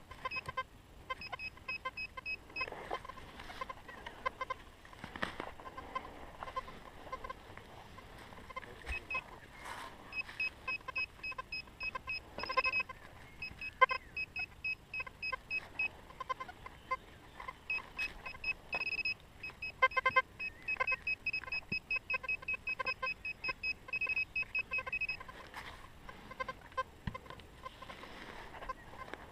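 Metal detector giving rapid runs of short, high beeps in repeated bursts, many a second, as it signals a target.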